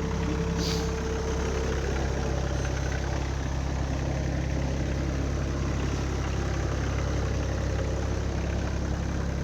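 Kioti subcompact tractor's diesel engine idling steadily just after starting.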